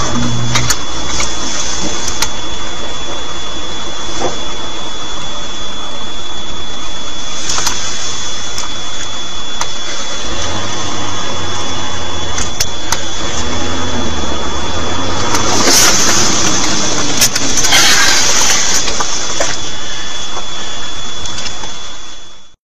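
Steady engine and road noise inside a moving car, picked up by a dashcam, with a thin steady high whine over it. Two louder noisy rushes come in the last third, and the sound fades out at the end.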